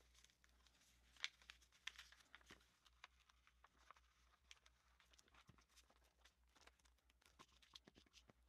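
Faint crinkling and crackling of paper backing being peeled off adhesive vinyl stencil, with scattered small ticks and a few louder crackles in the first few seconds.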